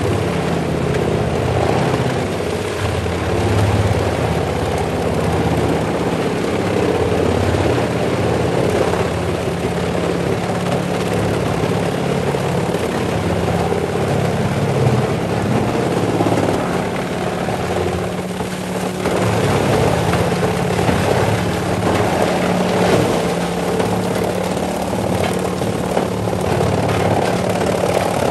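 Large horizontal wood grinder running steadily under load, its diesel engine droning while the chain infeed and spiked feed roller pull in logs and stumps and the rotor grinds them to mulch.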